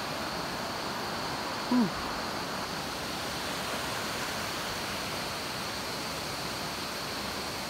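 Steady rush of a river flowing over rapids, with a brief falling tone about two seconds in.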